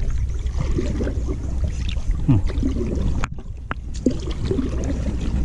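Wooden paddle stroking through the water beside a small boat, with splashing and dripping from the blade. Two short knocks come a little over three seconds in.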